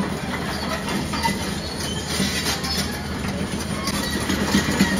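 A loud, steady mechanical rumble with a low hum and rapid clattering, like a heavy vehicle or train running close by.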